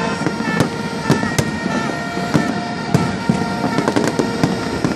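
Fireworks display: a rapid, irregular string of sharp bangs and crackles, several a second, over a continuous rumble of distant bursts.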